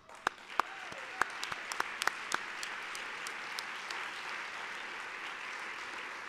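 Audience applauding: a few separate claps at first, quickly filling out into steady applause.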